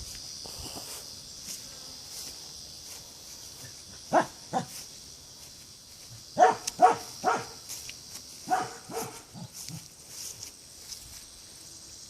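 A dog barking: two barks, then after a short pause a quicker run of about five more. A steady high chirring of insects, likely crickets, goes on underneath.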